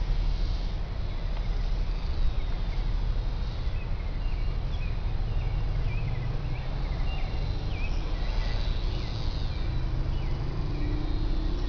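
Outdoor field ambience: a steady low rumble of wind on the microphone, with scattered faint short chirps. A faint steady hum comes in near the end.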